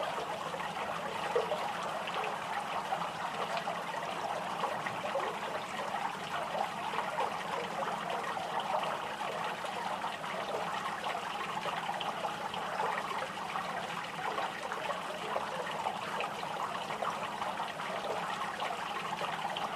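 Small fountain's water trickling and splashing steadily into its basin.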